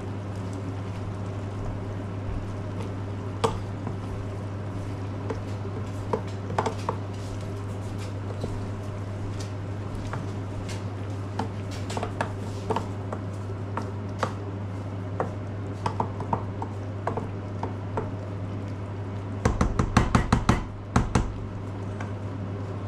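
Pots, lids and utensils clinking and knocking now and then, with a quick run of louder clattering knocks near the end, over a steady low hum.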